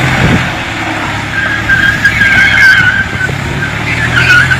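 Tractor and SUV engines running hard under load in a tug of war, wheels spinning in loose dirt, with a wavering high-pitched squeal twice.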